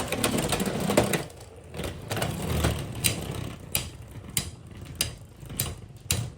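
Hard plastic Beyblade parts being handled, giving sharp ratchet-like clicks about every half-second after a busier first second.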